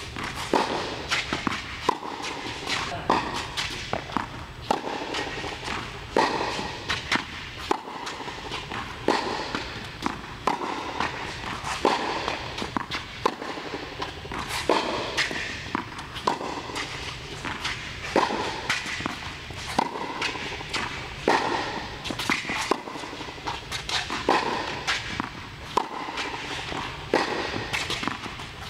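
Tennis racket striking balls in a repeated drill, about one hit every second to second and a half, with softer ball bounces and footfalls on the court between the hits.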